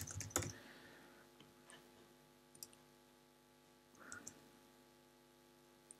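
A few faint, scattered clicks of a computer mouse and keyboard, over a low steady hum.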